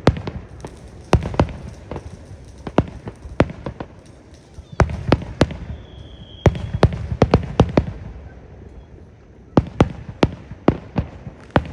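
Aerial fireworks going off in a rapid, irregular string of sharp bangs and cracks, in clusters with short lulls between them.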